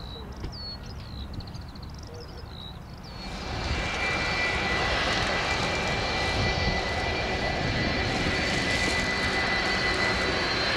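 Birds chirping, then about three seconds in the steady noise of a jet airliner's engines comes in suddenly, with a high steady whine on top, growing slightly louder.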